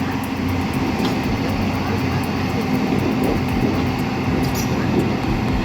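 Heavy equipment's diesel engine running steadily under load, a continuous low drone.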